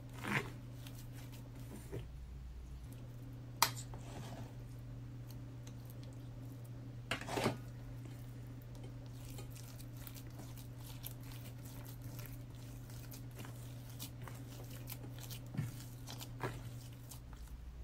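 Hands kneading a crumbly tarhana dough of vegetable purée and gluten-free flours in a stainless steel bowl: soft rubbing with scattered clicks and a few short knocks against the metal, the sharpest about three and a half seconds in. A steady low hum runs underneath.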